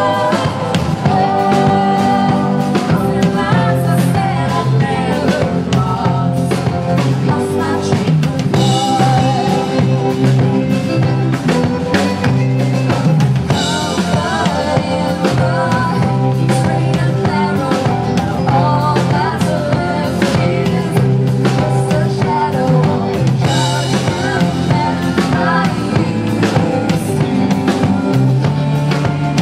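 Woman singing a country-pop song live into a handheld microphone over a steady band backing of drums and bass.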